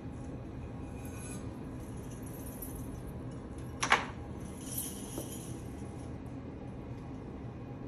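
Steady low hum of an electric potter's wheel running, with the metal coins on a flamenco costume jingling lightly now and then. One sharp crack about four seconds in is the loudest sound.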